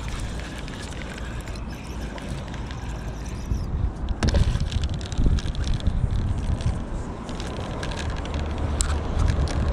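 Wind rumbling on the microphone, strongest about four to five seconds in, over the whir and clicks of a spinning reel being cranked to bring in a hooked fish.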